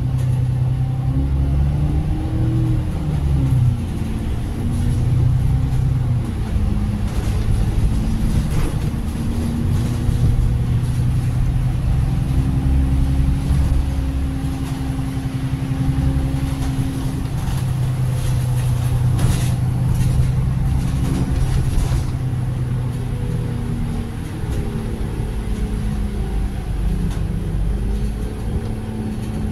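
Diesel bus engine and road rumble heard from inside the moving bus, the engine note slowly rising and falling as it changes speed.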